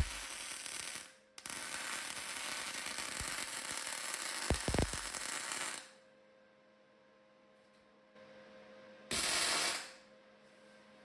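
Electric welding arc crackling in three bursts, a long one of about four seconds between two shorter ones, as steel pieces are welded on, over a steady electrical hum.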